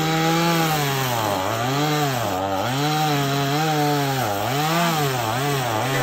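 Gas chainsaw cutting wood under load. Its engine pitch repeatedly dips and recovers as the chain bites and eases, with the dips coming quicker near the end.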